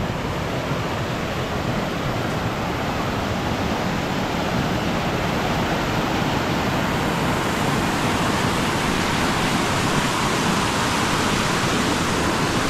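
Small mountain stream tumbling over rocks in a run of cascades: a steady, loud rush of water that grows a little louder in the second half.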